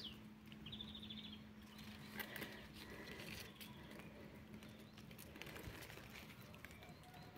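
Faint garden ambience: a small bird gives a quick run of high chirps about half a second in, over a faint steady low hum that fades out around the middle, with a few soft clicks.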